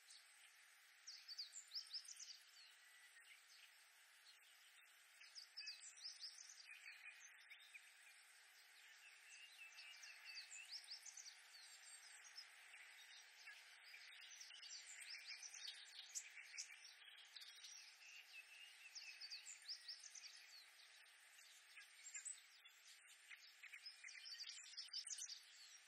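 Oriental reed warblers singing: clusters of quick, short repeated notes coming every second or two, over a faint steady background hiss.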